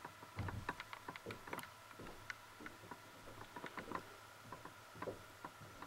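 Light, irregular plastic clicks and taps as a plastic action figure is handled and turned in the hands, its parts knocking and shifting.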